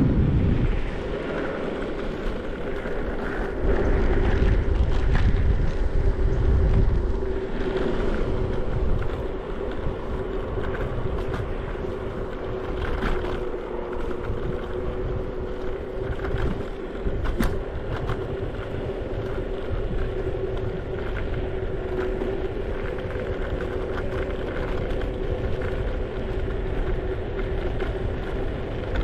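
A scooter riding along, its motor giving a steady whine, with wind rushing over the microphone. The wind buffets heavily near the start and again for a few seconds around the fourth to seventh second.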